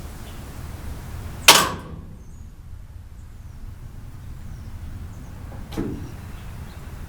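One loud, sharp metallic bang about a second and a half in, dying away within half a second, then a fainter knock near six seconds. These are impacts from bumper-bracket hardware and tools as the bracket bolts are broken loose with a breaker bar.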